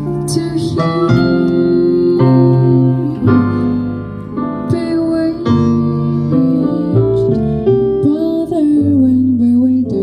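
Live jazz combo playing: keyboard chords over upright bass notes, with a woman singing.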